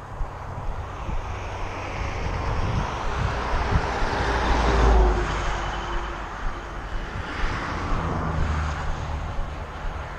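An engine passes by, its noise swelling to a peak about halfway through and fading away, with a drop in pitch as it passes. A second, weaker swell follows near the end.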